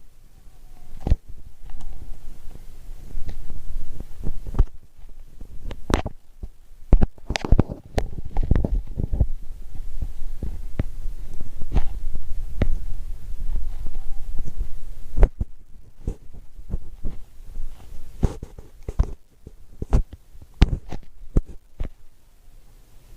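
Slime being squeezed and poked by hand: irregular sharp clicks and pops over low thudding handling noise, busiest in the middle.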